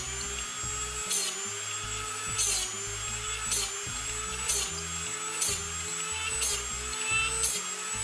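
Dremel rotary tool with a grinding stone running with a steady high whine, grinding bandsaw blade teeth on a Norwood blade sharpener as the hand crank indexes the blade. A short, loud grinding strike comes about once a second, one for each tooth, and the motor's pitch dips slightly under each strike before recovering.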